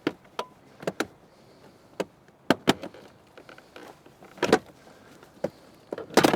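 Plastic interior trim panel of a 2020 Chevy Equinox being pried off, giving a run of sharp clicks and snaps at irregular intervals as its clips let go, the loudest cluster near the end.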